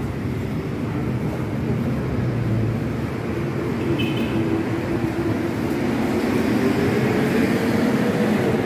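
Steady city traffic noise with a vehicle engine rising gradually in pitch through the second half as it accelerates.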